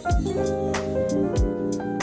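Background music: held plucked-string and keyboard notes over a slow beat, with two deep kick-drum hits and light cymbal ticks.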